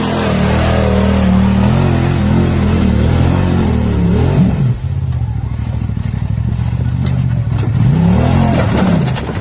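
Side-by-side UTV engine running and revving in surges, the pitch rising and falling. About five seconds in, it switches to another UTV revving hard as it climbs over rocks and tips over, with a few sharp knocks near the end.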